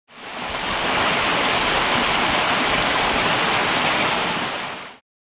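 A small woodland stream running: a steady rush of water that fades in over about the first second and fades out near the end.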